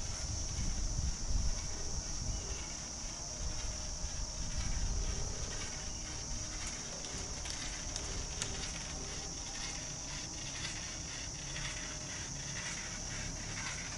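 Steady high-pitched insect chorus, with a pulsing rhythm in it, and a low rumble during the first few seconds.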